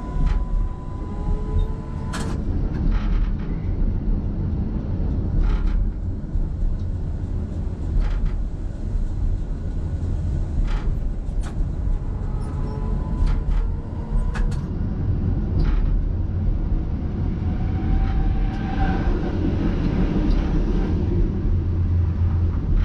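Tram running along its track: a steady low rumble, with sharp clunks of the wheels over rail joints or points every second or few, and faint whines from the electric traction motors gliding up in pitch now and then.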